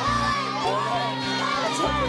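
A crowd of children shouting and cheering, many voices overlapping, with background music underneath.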